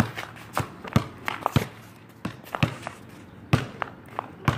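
A basketball bouncing on an asphalt driveway: about a dozen sharp thumps at uneven spacing, mixed with footsteps.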